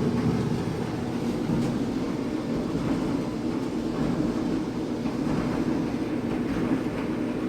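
Kenmore electric clothes dryer running, its drum motor and blower making a steady hum and rumble on a test run after its heating element was repaired.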